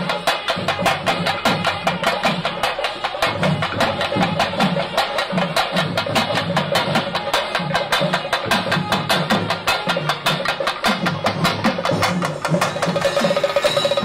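Procession percussion: drums beaten in a fast, steady rhythm, with sharp clacking strokes over deeper drum beats. A sustained tone joins near the end.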